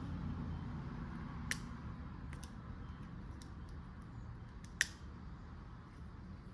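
Light metallic clicks and ticks of hand tools being handled, with two sharper clicks about a second and a half in and near five seconds in, over a low rumble that fades away.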